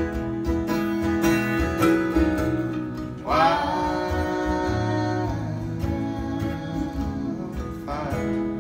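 Live acoustic guitar and mandolin playing together under a sung melody, with the voice holding one long note from about three seconds in.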